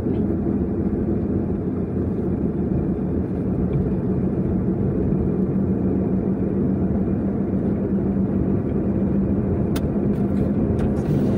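A car driving at steady speed on a paved road, heard from inside: an even engine and tyre rumble with a low steady hum, and a few light clicks near the end.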